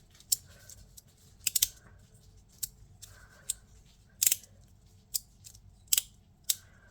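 Tiny fidget slider being slid back and forth, its parts snapping into place with sharp clicks, about nine of them at irregular spacing of roughly a second, including a quick pair about a second and a half in. A faint scrape of the parts sliding comes between the clicks.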